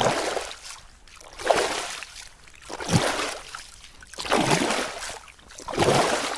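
Water splashing in an even rhythm, one swell of splashing about every second and a half, like swimming strokes.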